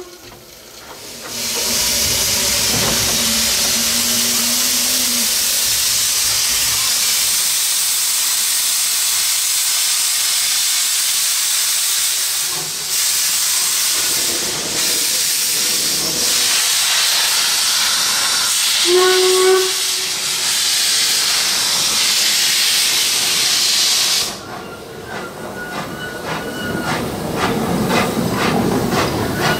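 Steam locomotive L 509, an 1877 2-4-0 side tank engine, hissing loudly with steam blowing out around its wheels, with one short whistle blast about two-thirds of the way through. Near the end the hiss drops away and a quick run of rhythmic exhaust beats begins, growing louder.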